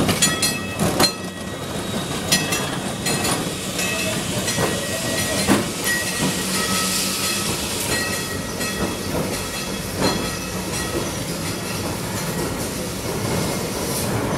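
Electric tram running on rails as it passes close by and moves away, its wheels knocking and clacking on the track, loudest in the first few seconds, with thin squealing tones now and then.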